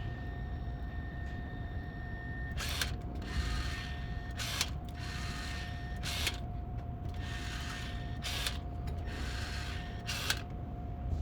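Hand caulking gun laying a bead of sealant: its trigger is squeezed in repeated strokes, giving a sharp ratchet click roughly every two seconds, five in all, with a faint hiss between the clicks over a steady faint hum.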